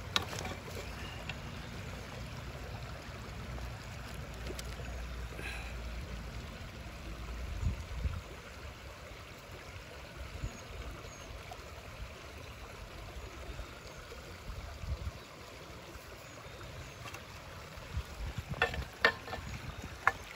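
Outdoor creek-bed ambience: a steady low rumble with a faint hiss, like wind on the microphone. Near the end come a few sharp clicks and crunches of stones on the loose gravel.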